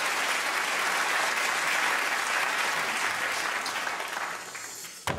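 Studio audience applauding steadily, the clapping dying away near the end.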